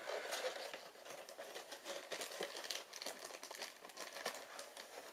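Plastic packaging crinkling and rustling in the hands, with small crackles and clicks throughout, stopping about five seconds in.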